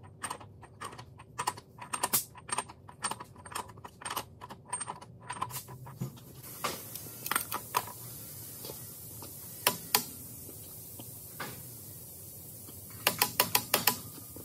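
Ratchet wrench clicking as a socket turns the axle nut on a semi truck's front wheel hub: rapid clicks, about three a second, for the first five seconds or so. Then scattered single clicks, and a quick run of about six clicks near the end as a long torque wrench is worked on the nut.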